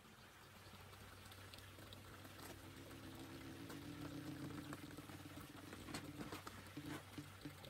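Faint water trickling and splashing in a backyard koi pond, growing slowly louder.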